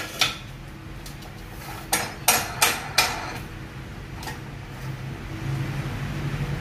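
Metal clanks and knocks as a square steel tube is set into the steel vise of a metal-cutting saw and the vise screw is turned to clamp it. There are about six sharp knocks in the first four and a half seconds, then quieter handling.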